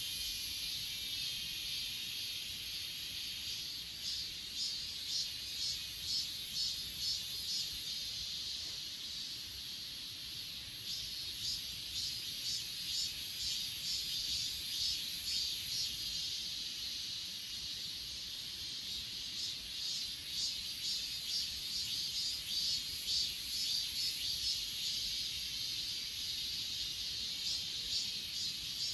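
Chorus of grass insects singing, crickets among them: a steady very high-pitched trill, with quick, evenly repeated chirping pulses that fade and return.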